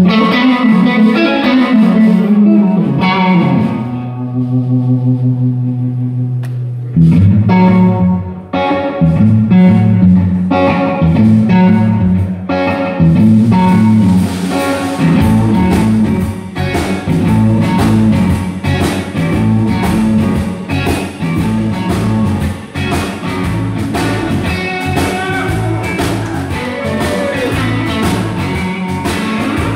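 Live rock-blues band playing an instrumental passage led by electric guitar. The guitar rings out held notes at first, and about seven seconds in bass and drums come in with a steady beat.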